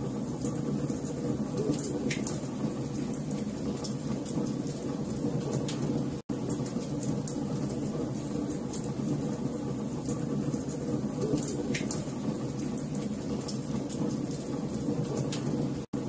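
Wood fire burning: a steady low rush of flames with frequent sharp pops and snaps from the burning logs. The sound cuts out for an instant about six seconds in and again at the end.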